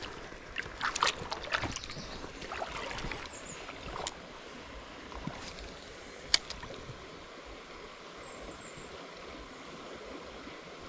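Water splashing and swirling as a wild brown trout is let go by hand into a shallow stream, then the stream running steadily, with two sharp clicks later on.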